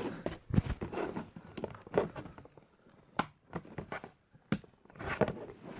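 Handling noise from a DDR4 RAM stick being pressed into a motherboard slot and a phone being set down: rustling and knocks, with two sharp clicks about three and four and a half seconds in.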